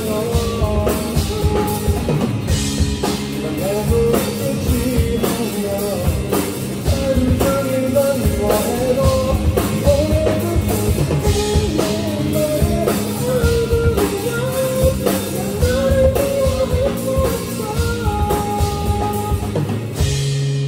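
Live rock band playing a song at full volume: drum kit with cymbals, electric guitar and electric bass, with a melody line riding over them.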